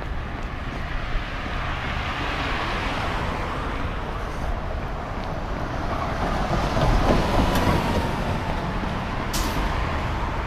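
City street traffic with a city bus approaching and passing. The noise swells to its loudest about seven seconds in, and a short sharp hiss comes near the end.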